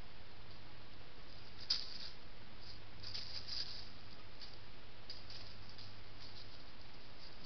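Faint, scattered rustling and crackling of dry fallen leaves as an animal forages in the leaf litter, loudest in a short crackle about two seconds in and a cluster around three and a half seconds. Under it runs the trail camera's own steady hiss and low hum.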